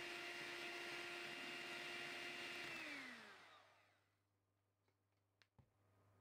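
Electric hand mixer beating egg yolks and sugar at medium speed, a steady motor whine. About three seconds in it is switched off and winds down, falling in pitch until it stops; a couple of faint clicks follow.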